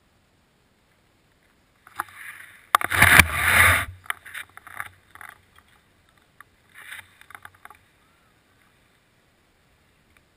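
Close rustling and scraping with a few sharp clicks as the skier shifts and lifts the ski poles, with the loudest scrape about three seconds in.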